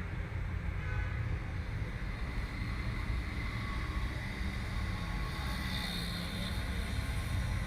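Steady low background rumble with a faint hiss and no distinct events.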